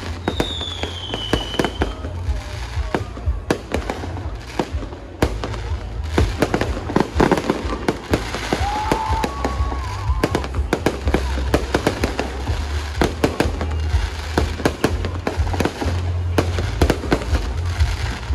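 A dense, continuous fireworks barrage: rapid bangs and crackling pops, with a falling whistle near the start.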